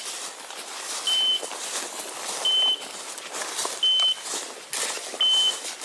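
Bird dog's beeper collar sounding a short, high beep about every second and a half, four times; the fast repeat is the point-mode signal that the dog is locked on point.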